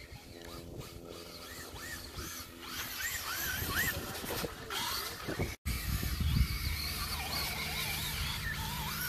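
Traxxas Rustler RC truck's electric motor whining as it drives through snow on 3D-printed PETG paddle wheels, the pitch rising and falling with the throttle. The sound cuts out for an instant about five and a half seconds in, and after that there is a low rumble underneath.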